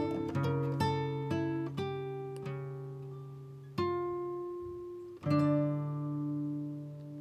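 Background music: acoustic guitar playing plucked notes, a quick run early on, then slower single notes and chords left to ring and fade.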